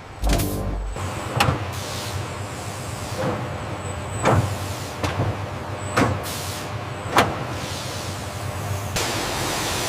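Machinery sounds: a low thud at the start, then a string of short whirring sweeps about once a second over a steady hiss, which grows louder near the end.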